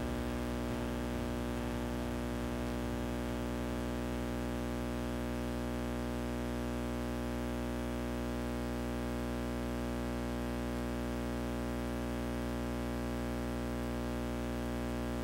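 Steady electrical hum with many overtones over a constant hiss, unchanging throughout.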